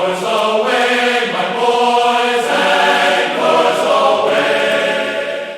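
Choral chanting: voices singing long held notes, the pitch changing about once a second.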